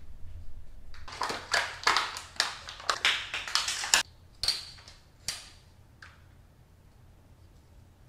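Crinkling and rustling of a plastic blister pack being opened to take out a replacement recoil starter rope, a quick series of rustles over about three seconds, followed by a few light plastic clicks and taps as the recoil starter housing and rope are handled.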